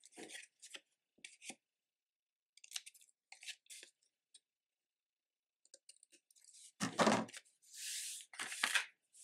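Scissors snipping small wedges into heavy card, several short cuts in the first four seconds. About seven seconds in there is a thump, then a brushing sound as a hand sweeps across the cutting mat.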